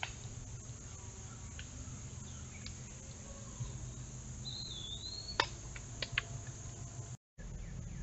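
Summer woodland ambience: a steady high insect drone, with one short wavering bird whistle about halfway through and a few sharp clicks just after it. The sound cuts out for a moment near the end.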